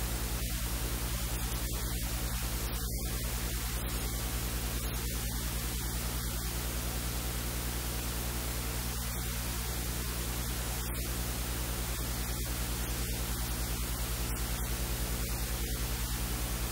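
Steady electrical mains hum with its overtones under a constant static hiss, and no other sound standing out.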